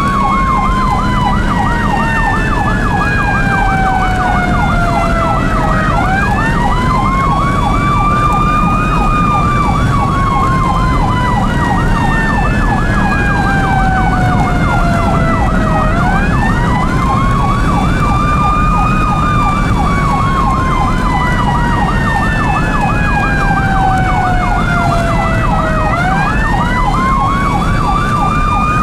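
Dual ambulance sirens. A Federal e-Q2B winds up quickly and coasts down slowly in long cycles about every ten seconds, over a Whelen electronic siren on a fast yelp. Steady road and engine noise from the moving ambulance runs underneath.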